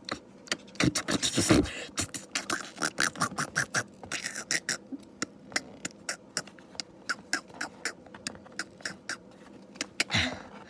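Hands handling an action figure and its fabric robe, making irregular sharp clicks and crackles several times a second, with a denser burst of crackling about a second and a half in.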